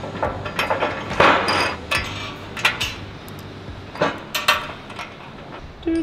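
Metal fittings and brackets of an ARB Base Rack roof rack clinking and knocking against the rack's rails as they are handled and slid into its track, a scattering of sharp clicks with a longer scrape about a second in.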